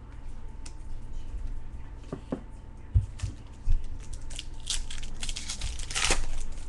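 A trading card pack's wrapper being torn open and crinkled by hand, with the crackling loudest near the end. Two dull knocks of cards or hands against the table come around the middle.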